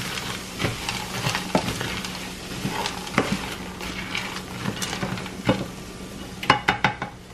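Frozen peas, corn and carrots sizzling with onion in butter in a nonstick frying pan as a plastic spatula stirs and scrapes through them, with a quick run of scrapes and taps near the end.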